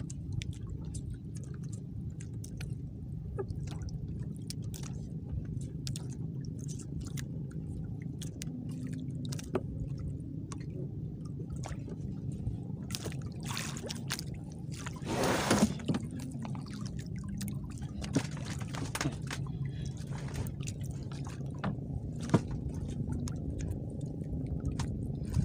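Water sloshing against a small wooden outrigger boat, under a steady low rumble, with scattered light clicks and taps as a longline is hauled in and coiled by hand. A short, louder rush of noise comes about fifteen seconds in.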